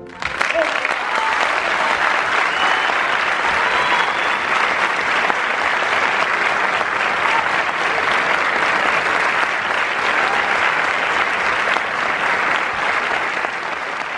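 Audience applauding steadily in a theatre, breaking out right as the music stops and easing off slightly near the end.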